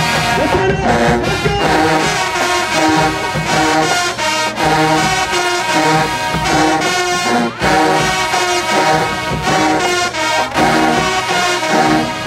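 Marching band playing loudly: sousaphones, trumpets and trombones over a steady drumline beat.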